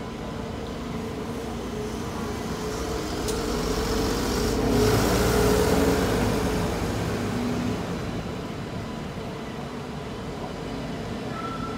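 Red light-rail tram passing close by: its running noise and a steady motor hum build to a peak around five or six seconds in, then fade.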